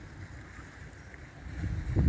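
Wind buffeting the microphone: an uneven low rumble over a steady faint hiss, with a stronger gust near the end.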